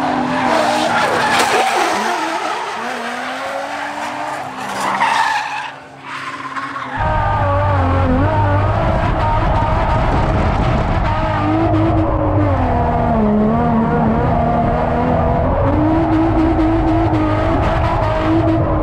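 Drift car sliding with its tyres screeching and engine running hard for the first several seconds, dipping away near six seconds. From about seven seconds, a steady, loud engine note from inside a Nissan 350Z drift car, held at high revs with its pitch wavering as the throttle is worked through the slide, over tyre noise.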